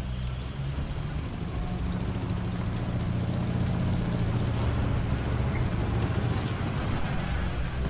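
Engines of slow-moving vintage motor vehicles, a motorcycle with sidecar and a sedan, running with a low steady hum that grows louder about three seconds in as they pull up.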